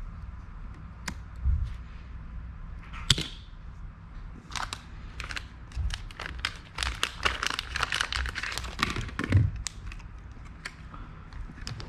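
Small sharp clicks and taps of tools and parts as a Mac Mini 2020 is taken apart for a RAM upgrade: one sharp crack about three seconds in, then a quick flurry of clicks.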